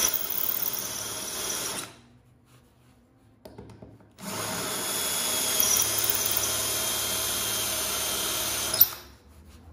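Cordless drill turning a quarter-inch hollow diamond core bit into a wet travertine limestone tile. It runs for about two seconds, stops, then runs again for about four and a half seconds and stops with a sharp click.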